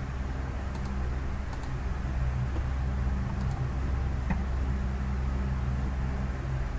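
Steady low background hum and hiss of the recording room, with a few faint clicks of a computer mouse.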